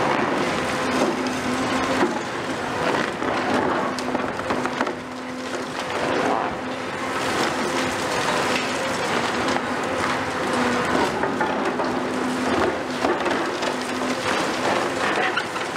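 Caterpillar 390F excavator's C18 diesel engine running with a steady hum while its hydraulic demolition crusher bites into a concrete slab, with continuous cracking and crunching of concrete and clattering of rubble and rebar falling onto the debris pile.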